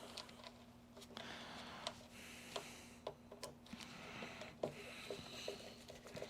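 Faint clicks and taps of small parts of an upright vacuum cleaner being handled, over a low steady hum.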